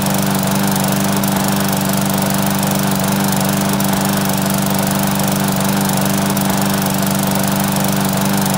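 Briggs & Stratton 500E series single-cylinder push-mower engine running steadily. The engine, which would not start before, now runs after a new spark plug, a new filter, fresh fuel and cleaned carburetor jets.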